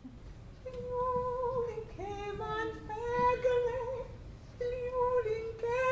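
A woman singing a slow melody in long held notes, with a short pause near the end.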